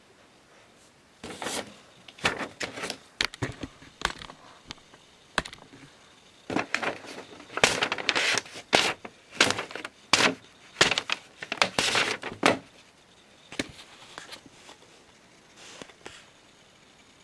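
Paper being stabbed through and torn by a Lego dagger: a quick, irregular run of rips and crinkles starting about a second in and stopping a few seconds before the end.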